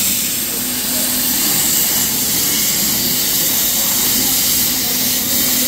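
CNC plasma torch cutting steel plate: a loud, steady hiss of the plasma arc and its air jet, with a faint low hum that comes and goes underneath.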